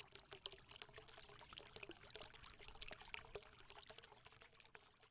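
Faint trickling, pouring-water sound, a dense patter of tiny drips and crackles that dies away near the end.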